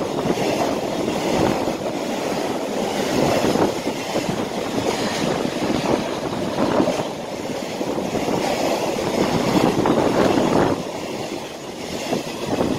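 Curtain-sided freight wagons rolling past close by at speed: a loud, steady rumble of steel wheels on rail, with a clatter every second or two from the wheels.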